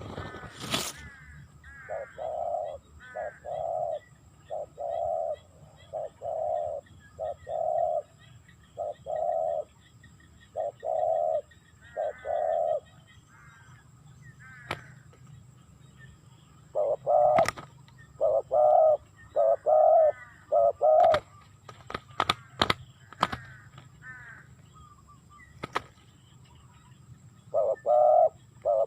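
Spotted doves cooing in repeated short phrases of low coos. They pause about halfway, then come back louder. Several sharp clicks sound over the cooing, a cluster of them a little past the middle.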